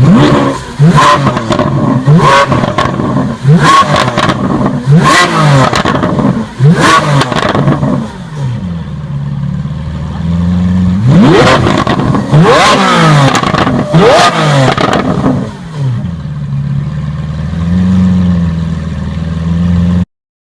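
Lamborghini Veneno Roadster's 6.5-litre V12 revved hard about six times in quick succession, each rev climbing and dropping straight back. It settles to idle, then gets two longer revs before idling again, and the sound cuts off abruptly near the end.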